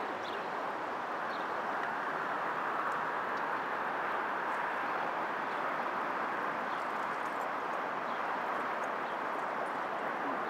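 Steady rush of pumped groundwater pouring out of a pump station outfall into the river, an even hiss-like flow with no change in level.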